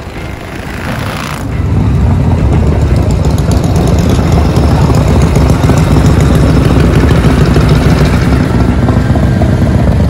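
Vintage Harley-Davidson V-twin chopper engines running loudly. The rumble swells about a second and a half in and then holds steady with a fast, even beat.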